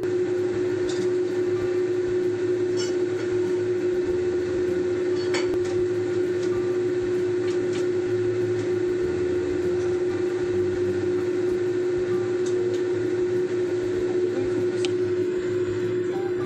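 Steady hum of a kitchen range hood fan, with a spatula clicking and scraping now and then in a nonstick wok as julienned ginger is stir-fried over a low flame.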